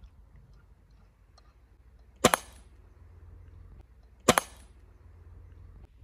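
Two shots from a rifle, about two seconds apart, each a sharp crack with a short ring after it.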